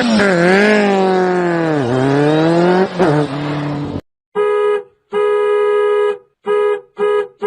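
An engine revving, its pitch dipping and climbing, cuts off abruptly about four seconds in. A car horn follows, honking four times at one steady pitch: two longer honks, then two short ones.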